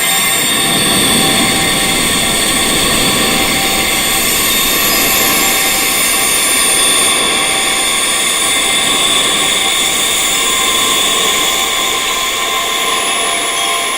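Wind chimes, many steady high metallic tones ringing together in a dense, unbroken wash over a continuous hiss, with no separate strikes standing out. The chimes are tuned to tinnitus frequencies for sound therapy.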